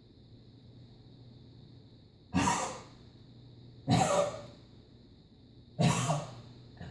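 Three coughs, each about half a second long and one and a half to two seconds apart, with a faint fourth at the very end.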